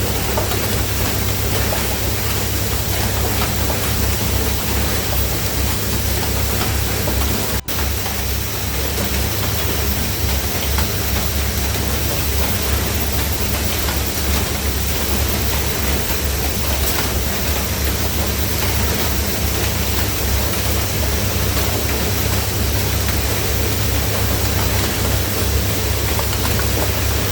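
Loud, steady din of automated Rubik's cube assembly machines running on a factory line: a dense hiss over a low hum. It cuts out for an instant about eight seconds in.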